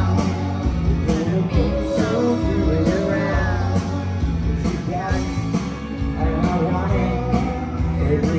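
Live rock band playing: electric guitar, bass guitar, keyboard and drum kit, with a steady drum beat.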